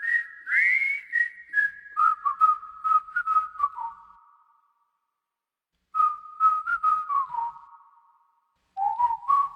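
A short tune of clear, ringing notes in three phrases, each stepping down in pitch and fading out, with pauses between them.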